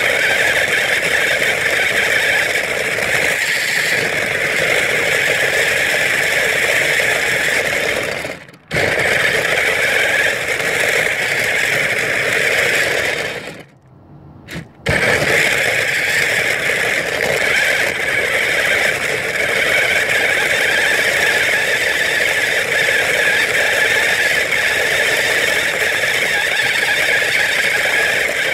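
Battery-powered ride-on toy car driving: its electric drive motors and gearboxes whine steadily, with the plastic wheels rattling and scraping over the ground. The sound cuts out briefly about a third of the way in, and the car stops for about a second near the middle before driving on.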